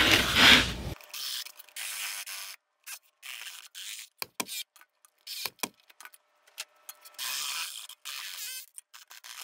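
Ridgid cordless jigsaw cutting through a wooden board with a rasping, scraping sound, finishing a cut-out that the CNC router left incomplete. It is loud for the first second, then thin and choppy, cutting out to silence again and again.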